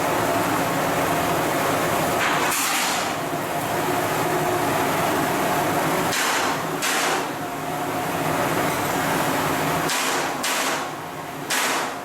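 Shipyard work noise: a steady machinery hum with several held tones, broken four times by short bursts of harsh noise, each about half a second long.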